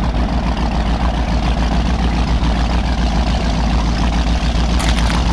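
Wind buffeting the microphone outdoors by open water: a loud, steady low rumble with a hiss above it.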